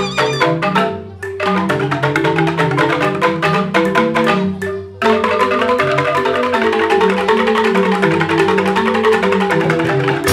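Balinese gamelan ensemble playing an instrumental tabuh, with fast, dense, interlocking mallet strikes on tuned percussion. The playing thins out briefly about a second in, falls away again near the middle, then comes back in suddenly at full level.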